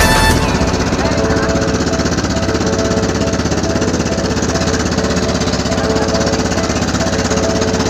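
Small engine of a motorised outrigger boat running steadily at cruising speed, a fast, even chugging. It follows a snatch of music that cuts off just after the start.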